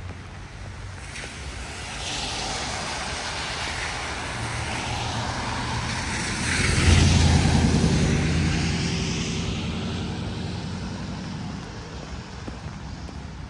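Jet aircraft passing low overhead. It swells over several seconds to its loudest about seven seconds in, with a falling whine, then fades away.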